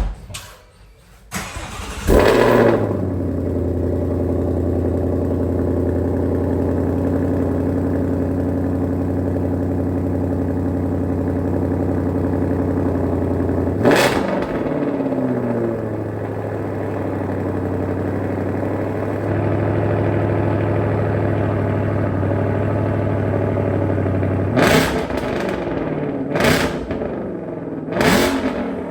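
2022 Shelby GT500's supercharged 5.2-litre Predator V8, running a tune and an H-pipe exhaust, cranks and fires about two seconds in with a flare of revs, then settles into a steady idle. The throttle is blipped once about halfway through and three times in quick succession near the end, each rev dropping straight back to idle.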